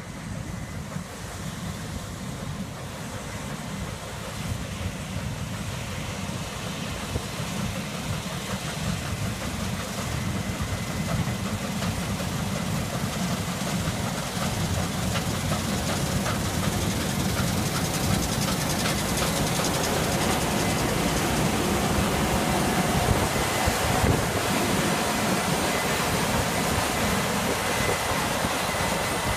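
Case IH Axial-Flow 9240 combine harvester at work cutting grain: engine and threshing machinery running with a steady heavy rumble that grows louder as the machine comes close. A faint thin high whine comes in over the rumble in the later part.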